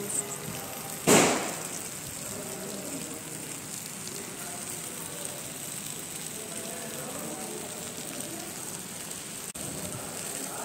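Food sizzling on a hot sizzler platter: a steady hiss, with a short loud burst of hissing about a second in.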